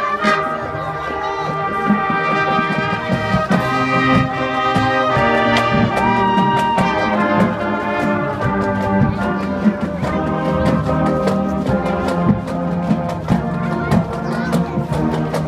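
High school marching band playing: brass (trumpets and trombones) sounding held, chord-like melody lines over steady drumline percussion.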